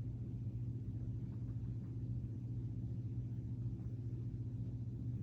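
Steady low hum, unchanging throughout, with no distinct knocks or clicks.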